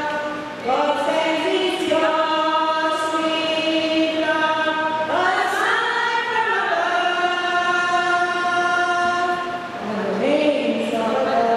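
Slow hymn singing at a funeral service, with long held notes that change pitch every second or two.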